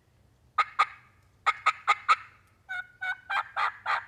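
Hen turkey cutting on a mouth call: short, sharp notes in quick clusters, two and then four, followed near the end by a steady run of notes.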